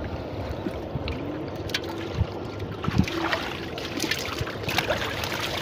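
Shallow muddy water sloshing and splashing as a person wades and gropes through it by hand, with scattered small splashes.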